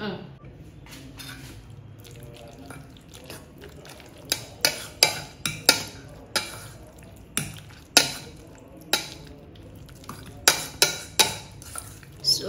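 Metal cutlery stirring a thick, creamy cabbage-and-chicken mix in a stainless steel bowl, clinking against the bowl's side in irregular sharp clicks that come more often from about four seconds in.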